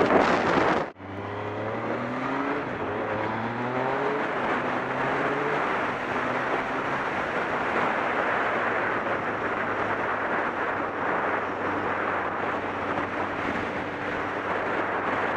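Motorcycle riding with wind rushing over the camera microphone: loud buffeting for about a second, then after a sudden break the engine pulls up through the gears, its pitch climbing in several steps, before settling into a steady cruise under constant wind and road noise.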